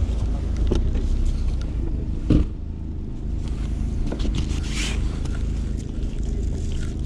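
Steady low rumble with one sharp thump about two and a half seconds in and a brief rustle near five seconds.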